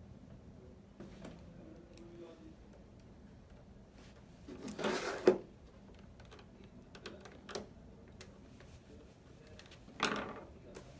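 Small clicks and scraping of a screwdriver driving Torx T8H security screws back into a PS4's plastic casing, with two louder handling noises about five and ten seconds in.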